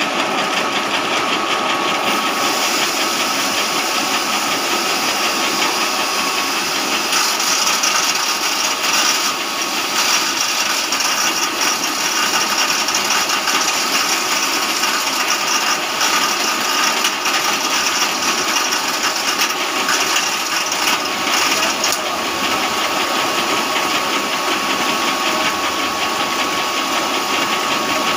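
A 2-in-1 chaff cutter and cattle feed grinder running steadily while it grinds feed into fine powder. It makes a loud, even mechanical noise with a steady high whine and a light rattle.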